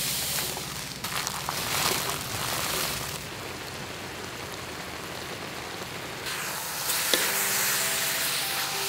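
Chili paste and chicken sizzling and bubbling in a metal wok, a steady frying hiss with a few short clicks in the first couple of seconds.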